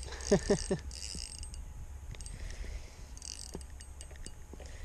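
Spinning reel being cranked in short spells while reeling in a hooked small smallmouth bass, its gears whirring and clicking.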